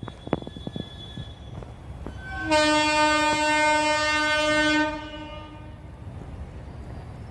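Train horn of an approaching Indian Railways locomotive sounding one steady blast of a little over two seconds, starting about two and a half seconds in.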